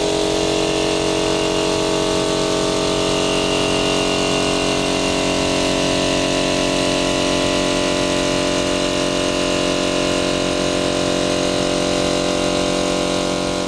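Air pump of an Armfield TH5 expansion apparatus running steadily, drawing the small cylinder down toward vacuum: an even mechanical hum made of several steady tones.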